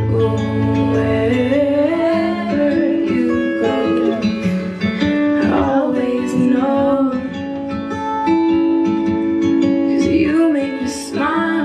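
A woman singing karaoke into a handheld microphone over a backing track with strummed acoustic guitar.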